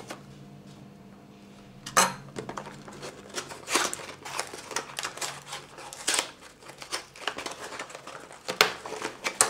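Cardboard mailer box being worked open by hand: a sharp snap about two seconds in, then repeated rustling, scraping and clicks of cardboard as the flaps are pulled.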